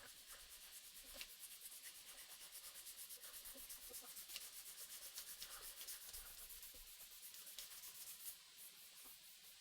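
Sandpaper rubbed quickly back and forth by hand on a wooden knife handle, a faint, rhythmic scratching of several strokes a second that stops near the end.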